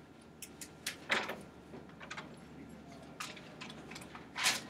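Scattered small clicks and knocks, with a louder knock about a second in and another near the end.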